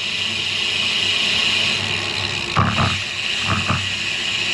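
Riding noise from a road bicycle: a steady rush of wind on the action camera's microphone with tyre noise on concrete, and two brief bumps in the middle.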